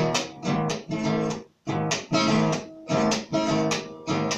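Acoustic guitar strummed in a chacarera rhythm, chord after chord in a steady lilting beat, with one short muted stop about a second and a half in.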